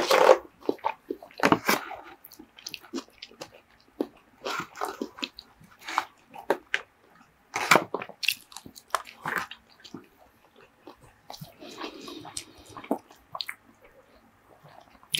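Close-miked wet chewing and mouth sounds of a person eating soft food: ahi poke, rice and shredded kalua pork. Scattered short clicks and taps from a plastic fork against the plastic tub and foam clamshell run through it.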